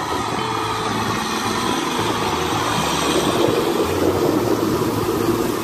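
Kubota M6040SU tractor's diesel engine running steadily under load as the tractor drags through the mud of a flooded rice paddy.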